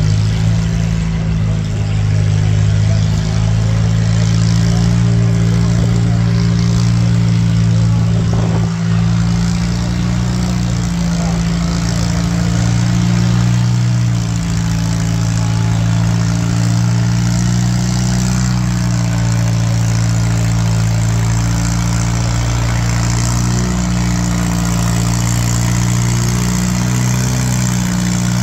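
Farm tractor engine running at a steady, even speed: a low, constant engine drone with no revving.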